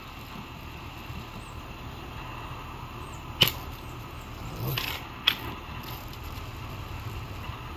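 Daisy Red Ryder spring-powered BB gun firing: a sharp crack about three and a half seconds in and another about two seconds later, with a short rougher sound between them.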